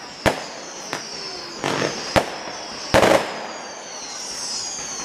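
Fireworks display: aerial shells bursting with about five sharp bangs, the loudest about three seconds in. High whistles glide down in pitch near the start and again near the end.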